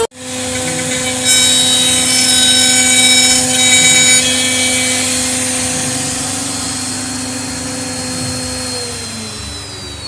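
A woodworking power tool's electric motor running with a steady high whine, louder and brighter between about one and four seconds in, then spinning down with falling pitch near the end.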